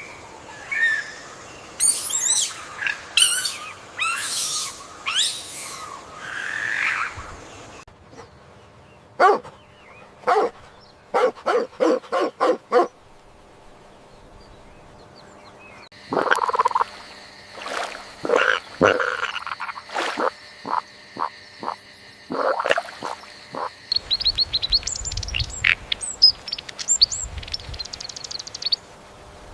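Frogs croaking in short, repeated calls, with high bird-like chirps at the start and near the end.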